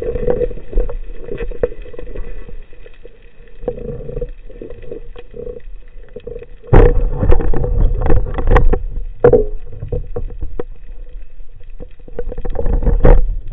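Underwater noise through a camera housing: water rushing, with irregular knocks and clicks from a speared bluefish being handled close to the camera. It grows much louder and busier about seven seconds in.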